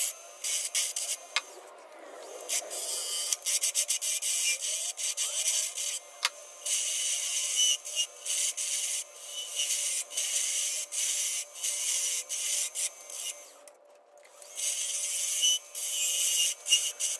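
A hand turning tool cuts purpleheart on a spinning wood lathe: a hissing, scraping cut that comes in many short bursts as the tool meets and leaves the wood. It drops out briefly about two seconds in and again near fourteen seconds. A faint steady hum runs underneath.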